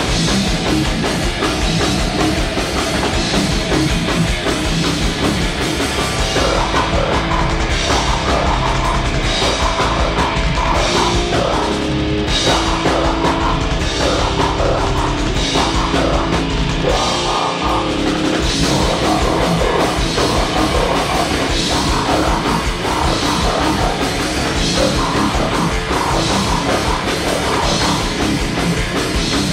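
A goregrind band playing live and loud: distorted electric guitars and bass over a pounding drum kit, a dense wall of heavy metal.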